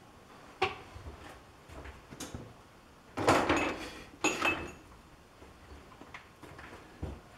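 Metal tools and parts clinking and clattering as they are handled and set down at a metal lathe: a few sharp knocks, a longer clatter about three seconds in, then a ringing clink.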